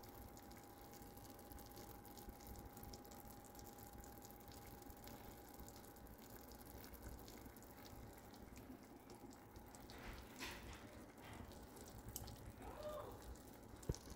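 Near silence: faint room tone with a faint steady hum that fades out about ten seconds in.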